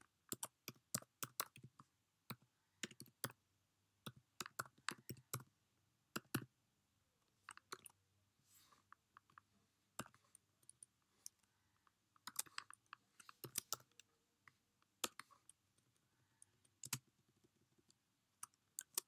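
Keystrokes on a computer keyboard: irregular runs of light clicks with short pauses between them as a line of code is typed.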